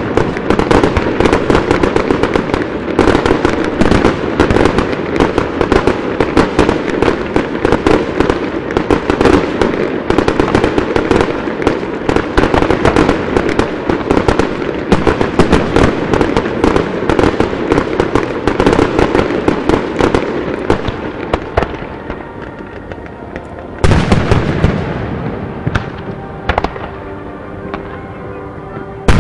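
Fireworks display finale: a dense, continuous barrage of bangs and crackling from aerial shells and ground-fired comets. It thins out about two-thirds of the way through, then a single loud bang comes near the end, followed by fainter bangs.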